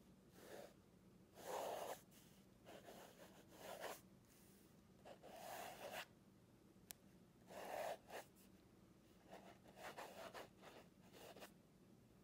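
Faint scratching of a pen writing in cursive on a sheet of paper, coming in irregular strokes, with one sharp tick a little past halfway.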